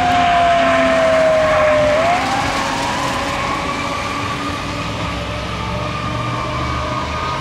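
2006 E-One Typhoon fire engine running Code 3. Its Federal Signal EQ2B siren slides down in pitch, then winds back up about two seconds in and holds high. The truck's engine rumbles underneath, and the sound fades slowly as the engine pulls away.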